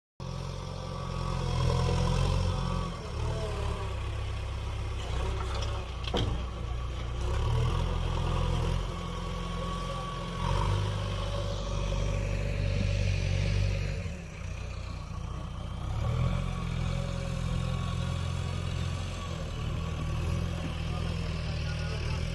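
Heavy diesel machinery engine running, its level rising and falling with load, with a single sharp clank about six seconds in.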